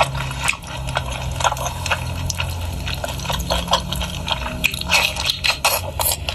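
Close-up wet chewing and lip-smacking of fatty pork: a string of short, irregular wet clicks and squelches over a low steady hum.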